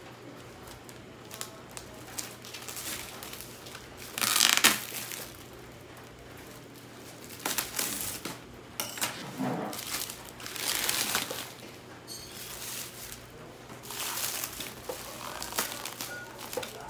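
Clear plastic wrap crinkling and rustling as it is peeled and pulled off a cardboard box, in irregular bursts, the loudest about four seconds in.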